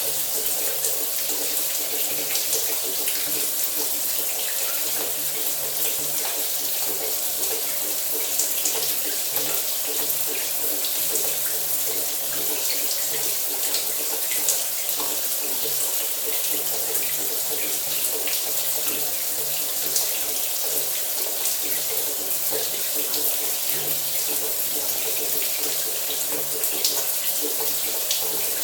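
Shower running steadily: an even hiss of water spraying and splashing, speckled with small droplet ticks, over a faint steady low hum.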